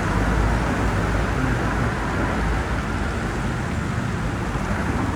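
Steady road traffic noise: a continuous rumble of passing cars, with no distinct single event.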